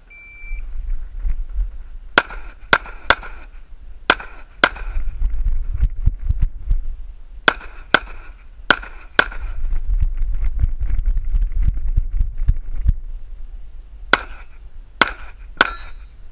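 A shot timer's start beep, then a semi-automatic handgun firing about a dozen shots, mostly in quick pairs, in three strings a few seconds apart. A low rumble on the microphone runs between the strings, loudest while the shooter moves between positions.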